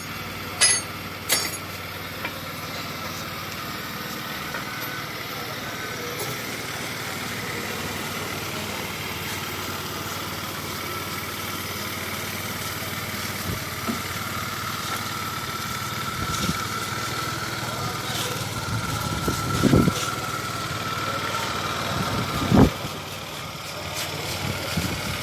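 Small scooter engine idling steadily, with a few short knocks near the start and again near the end.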